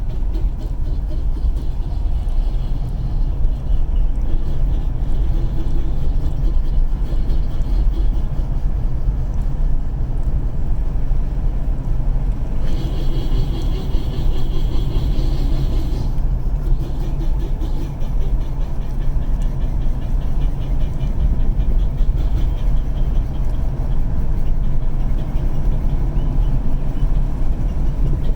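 2011 Ford Edge FWD driving, with a steady low rumble of road and drivetrain noise. Partway through, a higher-pitched sound comes in for about three seconds, then fades.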